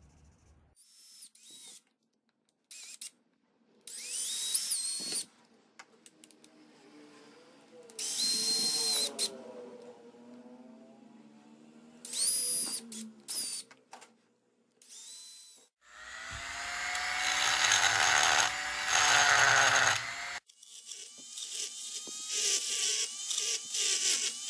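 Cordless drill boring holes in a PVC pipe: a series of short spin-ups and bursts of drilling, then a longer run of about four seconds under load. About twenty seconds in, a high-speed rotary tool starts, running with a steady whine and fast, even ticking as a burr grinds out the hole in the plastic.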